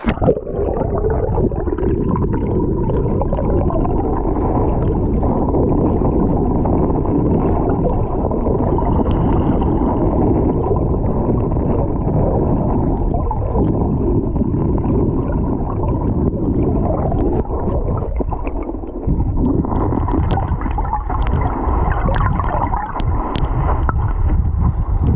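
Muffled, continuous rumble and gurgle of flowing stream water heard from a GoPro held underwater, with the high tones cut away.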